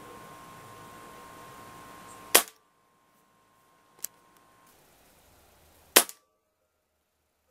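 Benjamin Marauder .177 pre-charged pneumatic air rifle firing twice, two sharp reports about three and a half seconds apart, with a fainter click between them.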